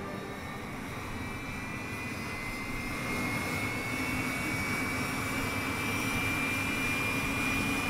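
Armstrong Siddeley Viper turbojet running on a test rig: a steady rush of engine noise with a high whine that slowly rises in pitch as the engine grows louder.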